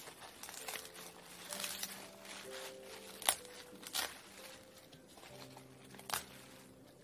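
Bomdong (Korean spring cabbage) leaves being snapped and torn off the head by hand: leafy crinkling and rustling, with three sharp snaps about three, four and six seconds in.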